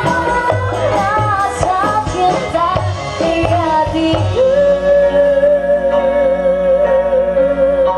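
Music with a singer: a winding melody, then about four seconds in a long held note with a slight waver.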